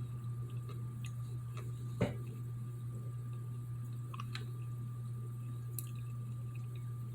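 Tic Tac Chewy candies being chewed in the mouth, with small wet clicks and one sharper click about two seconds in, over a steady low hum.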